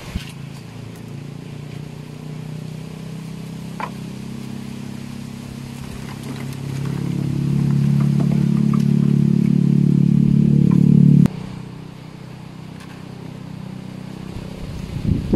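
A motor engine running at a steady pitch, growing louder about six seconds in, then cutting off abruptly about eleven seconds in.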